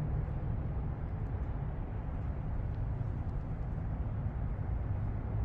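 Steady low outdoor rumble with a faint low hum running through it.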